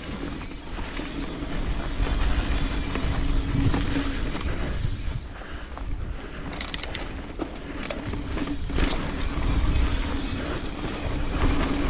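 Mountain bike riding along a dirt trail: steady wind and rolling noise on the camera microphone, with knocks and rattles from the bike over rough ground, several close together in the middle.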